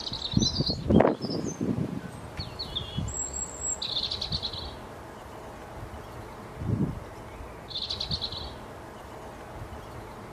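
Small songbirds calling: short high chirps in the first few seconds, then two buzzy chirping trills about four seconds apart. A few low thumps, the loudest about a second in.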